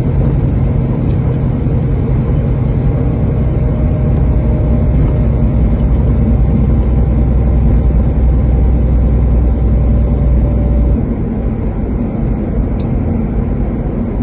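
Truck engine and road noise heard from inside the cab while driving: a steady low drone with a held engine note. It eases off about eleven seconds in as the lowest note drops away.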